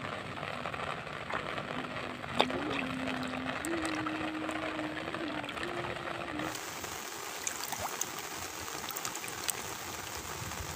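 Heavy rain falling on a pond, a steady hiss. A small engine drones through the first half, its pitch stepping up a little, and stops about two-thirds of the way in. There is one sharp click about two seconds in.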